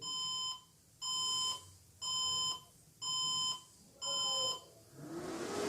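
Desktop PC motherboard speaker sounding a POST beep code: five beeps of about half a second, one each second, while the computer runs with no display. A repeating beep like this is typical of a memory error, and the video blames faulty or dusty RAM. Near the end a rising rush of air comes in as the cooling fan speeds up.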